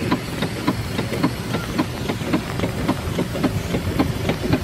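Steam launch's reciprocating steam engine running under way, a quick, even beat of knocks and chuffs.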